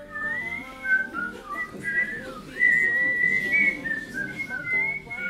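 A tune whistled as one melody line of held and sliding notes, over a soft lower accompaniment.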